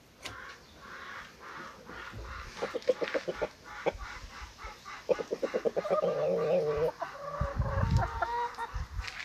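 Chickens clucking: two quick runs of rapid clucks, then a longer drawn-out call about six seconds in. A brief low rumble comes near the end.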